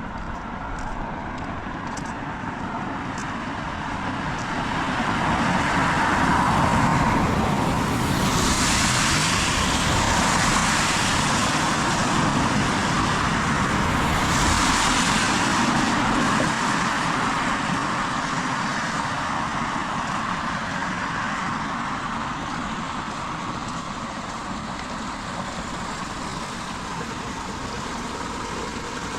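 Steady rain with a car passing on the wet road; the tyre hiss on water swells up, surges twice, then slowly fades.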